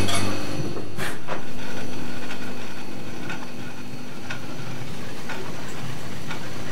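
Experimental ambient electronic soundtrack: a steady low drone with sharp, regular clicks about once a second, like a slow mechanical ticking.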